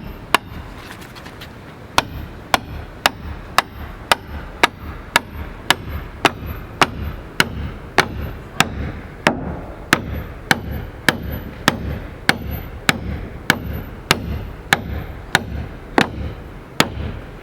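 Hammer blows driving a 1/2-inch carriage bolt through a drilled hole in a wooden woodshed post. The blows come steadily, about two a second, after a short pause near the start.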